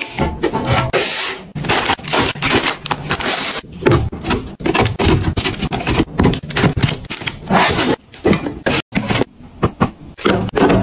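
Plastic containers and packaging handled in quick succession: a lid pressed onto a clear plastic storage canister, vacuum-sealed grain packs set into a plastic bin, and shrink-wrapped boxes handled. A dense run of taps, clicks, scrapes and crinkles, broken by a brief drop-out about nine seconds in.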